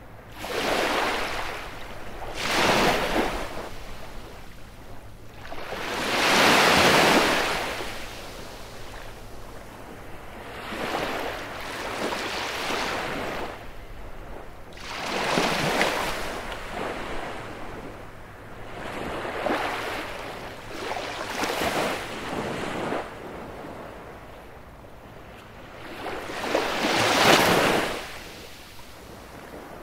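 Baltic Sea surf breaking on a beach, each wave rushing in, swelling and fading away every three to five seconds, some washes louder than others.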